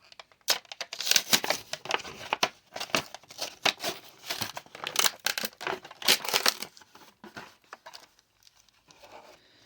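Packaging of a battery-operated wireless doorbell being opened by hand: a run of crinkling and tearing that dies down near the end.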